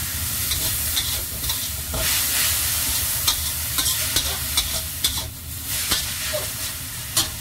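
Shredded vegetable filling of cabbage, carrot and wood ear mushroom sizzling in a hot stainless-steel wok as it is stir-fried, with a steady hiss. A metal spatula scrapes and clicks against the pan again and again, most often in the second half.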